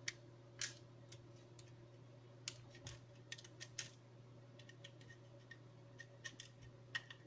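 Small hex key turning the screws in the bottom module of an M5Stack Core S3, making faint, irregular light clicks and ticks of metal on metal and plastic.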